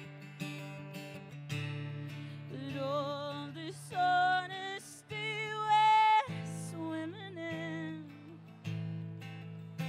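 A woman singing over her own strummed acoustic guitar, with vibrato on her held notes; the loudest sung notes come about four and six seconds in.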